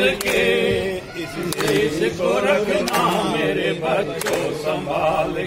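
Group of men singing a Hindi patriotic song in unison, led by one voice through a microphone, with handclaps on a slow, even beat about every second and a half.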